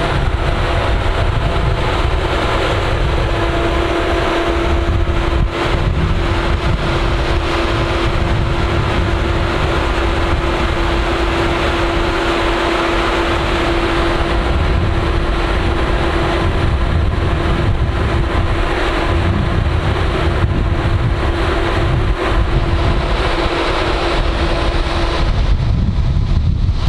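Wind buffeting the microphone over the steady hum of the parked track geometry train's onboard machinery. A held mid-pitched tone comes in about three seconds in and drops out near the end.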